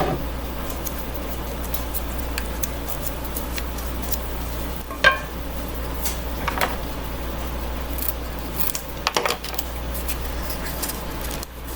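A utensil scraping and clinking against a container and a cast iron skillet as sour cream is spooned in, with a few sharper knocks. A steady low hum runs underneath.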